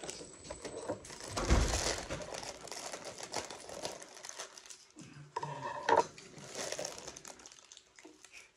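Plastic inner bag of boxed cake mix crinkling as it is handled and cut open with scissors.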